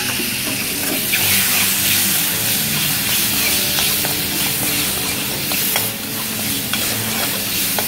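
Raw mango pieces sizzling in a hot oil tempering in a kadhai, stirred with a metal ladle that scrapes and clicks against the pan many times.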